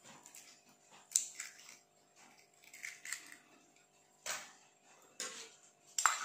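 A raw egg's shell being cracked and pulled apart over a small stainless steel tumbler: a few short, separate crackles and knocks about a second apart. Right at the end, quick clinks of a spoon in the steel tumbler begin.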